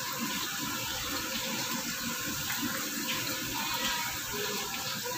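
Food deep-frying in a wok of hot oil: a steady sizzle with scattered small crackles as pieces are dropped in.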